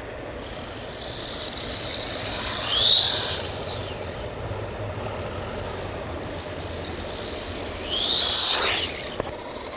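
Wltoys 12428 RC truck's electric motor and gears whining through two full-throttle runs, the pitch climbing to a peak about three seconds in and again about eight seconds in, then falling away.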